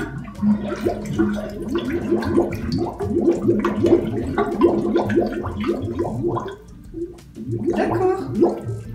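Toilet bowl gurgling on its own, a quick run of glugs a few times a second, easing off briefly about seven seconds in and then starting again. The owner is unsure whether the drain is blocked or water is being drawn elsewhere in the plumbing.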